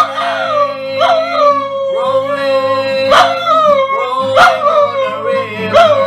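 French bulldog howling in long drawn-out notes along with a man singing and strumming an acoustic guitar, the guitar strokes falling about every second or so.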